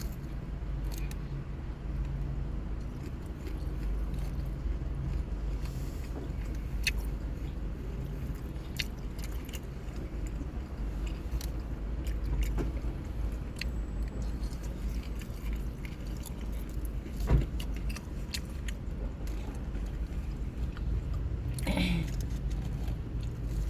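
Steady low rumble of a car engine idling, with scattered small clicks and rustles and one louder knock about 17 seconds in.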